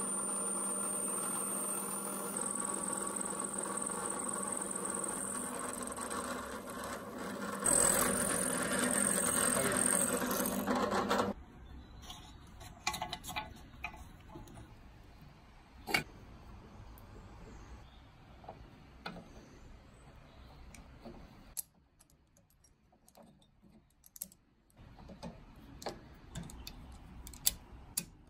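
A motor-driven machine hums steadily, gets louder about eight seconds in, and cuts off suddenly at about eleven seconds. After that come light metallic clicks and taps from small hand tools and fittings.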